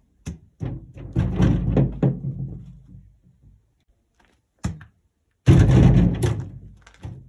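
Two loud thuds, about a second and five and a half seconds in, each dying away over a second or so, with short sharp knocks before each of them.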